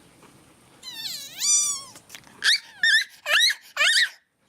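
Kitten meowing: one long meow starting about a second in, then four short, high-pitched mews in quick succession.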